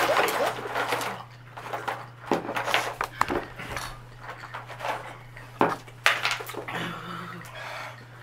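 Ice cubes clattering and clinking in a plastic ice bin as a hand rummages through them, with a few sharp clicks scattered through.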